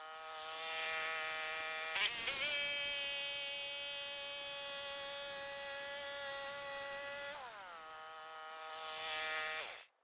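Engine of a Norwood LM30 sawmill running fast with a high, buzzing whine. Its pitch sags as the band blade takes load, comes back up about two seconds in along with a few short knocks, then sags again in the last few seconds before it cuts off abruptly.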